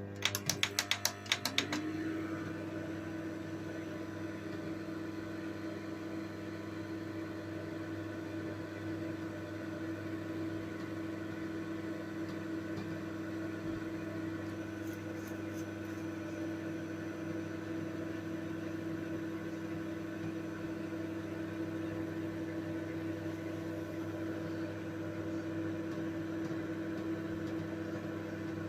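A quick run of clicks, then a microwave oven starts up and runs with a steady hum for the rest of the time, its tone settling in as it starts. Nothing much else happens over the hum while the halogen bulb is being microwaved.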